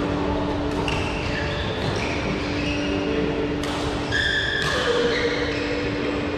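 Sports shoes squeaking on an indoor badminton court floor: a run of short, high squeaks, the loudest about four seconds in, over the steady hum of a large hall.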